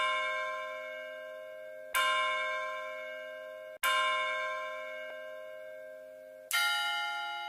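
Bell struck four times, about two seconds apart, each stroke ringing out and slowly fading; the fourth stroke is a different note.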